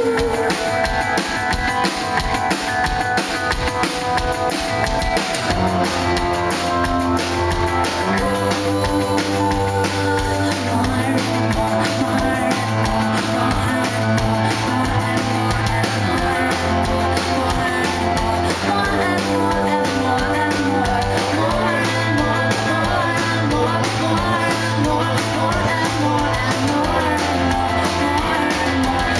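Live rock band playing through a stage PA: a drum kit beat with electric guitars, and low bass notes coming in about five seconds in.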